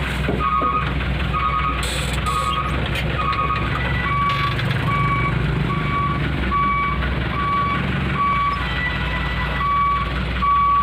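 Truck's reversing alarm beeping steadily, about one and a half beeps a second, over its engine running at low speed as it backs up.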